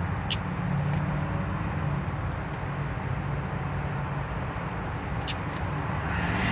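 Steady low hum of a car with its engine running, heard from inside the cabin. Two short, sharp high-pitched ticks or chirps come about five seconds apart.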